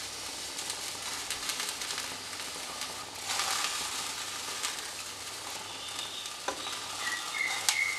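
Thick mutton masala being ladled and spread over a layer of cooked rice in a non-stick pot, the ladle tapping and scraping with scattered clicks, over a steady hiss from the pot on the stove.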